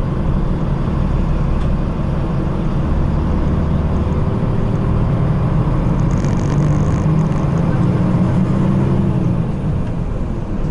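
Cabin noise inside a moving Nishitetsu city bus: steady engine and road rumble, with a low engine hum that grows stronger past the middle and eases off near the end.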